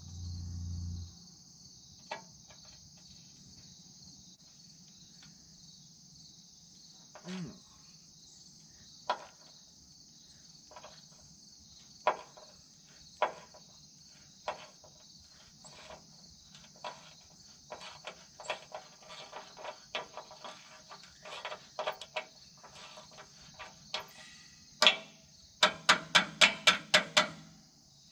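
Metal clicks and clinks of a hand wrench working on steel hydraulic fittings at a tractor loader's control valve. They come sparsely at first, then more often, and end in a quick run of about ten clicks near the end, over steady insect chirring and after a low thump at the very start.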